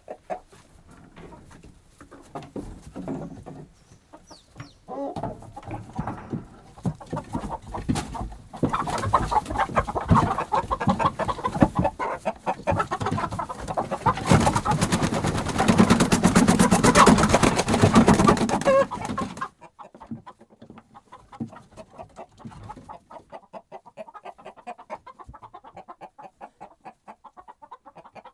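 A group of agitated hens clucking in rapid, pulsing calls. About a third of the way in, the clucking becomes much louder and busier, mixed with a noisy rustle. It cuts off suddenly a little over two-thirds of the way through, leaving quieter scattered clucks.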